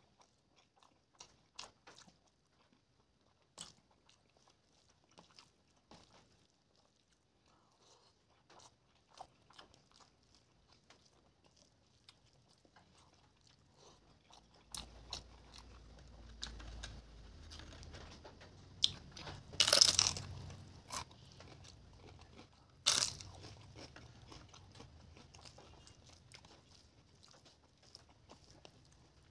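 Close-miked mukbang eating: soft scattered clicks and squishes of a hand mixing rice and soyabean chunk curry on a plate, then steady chewing from about halfway, with two loud crunchy bites about two-thirds of the way through.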